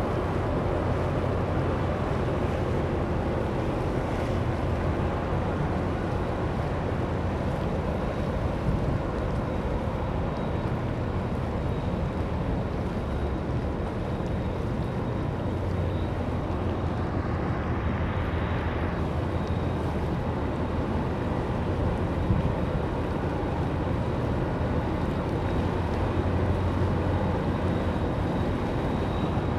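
Steady low rumble of a ship's engine, with wind on the microphone and the wash of water.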